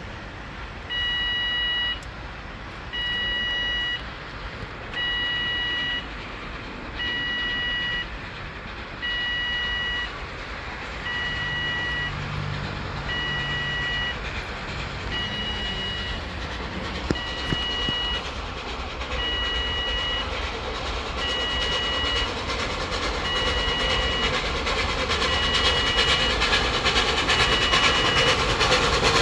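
An electronic warning beeper sounds a steady two-tone beep about a second long every two seconds. From about two-thirds of the way in, the rushing noise of an approaching steam-hauled train builds until it drowns the beeps.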